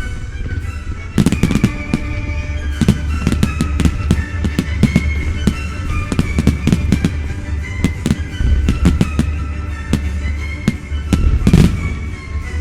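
A musical fireworks display going off: dozens of sharp bangs and crackles from bursting shells and batteries in quick, uneven succession, with heavier clusters about a second in and near the end. The show's music plays underneath.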